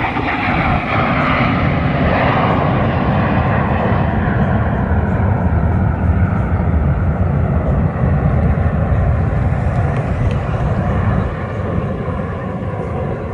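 Jet noise from a USAF Thunderbirds F-16 Fighting Falcon flying at an air show: a loud, steady, deep jet rumble that grows duller after the first few seconds.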